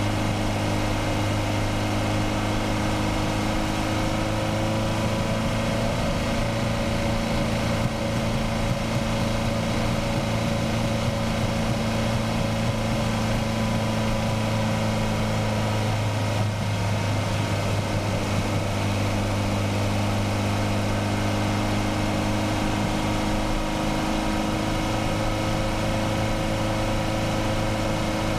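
Turbocharged Nissan SR20DET inline-four in a Mazda Miata running under way, its pitch drifting a little up and down with the revs, with a brief dip about two-thirds of the way through.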